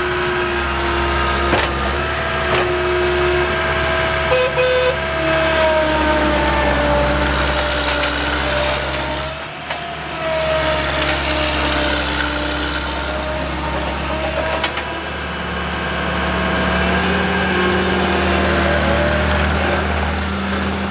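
A John Deere 323D tracked skid steer loader's diesel engine running, with whining tones that rise and fall in pitch as the machine works. The engine sound dips briefly about halfway through.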